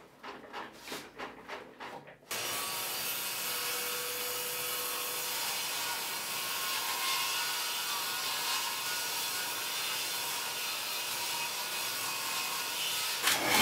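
Bosch GTS 10 XC table saw running steadily while it rips a 40 mm thick plank lengthwise. Before it starts there are a few light knocks of the board being handled, and a brief louder burst comes right at the end.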